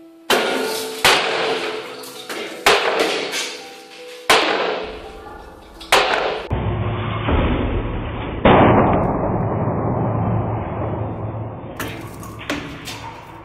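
A heavy steel weight on an impact test rig strikes a yellow flexible plastic forklift barrier again and again: a series of sharp bangs, each followed by metallic rattling and ringing, as the barrier rails flex to absorb the hits. A low rumble of machinery runs under the middle part.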